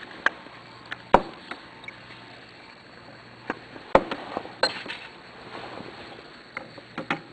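Glass test tubes in a rack tapped and knocked while iron filings are added to copper(II) chloride solution: about eight sharp, separate clicks, the loudest a little after one second and just before four seconds.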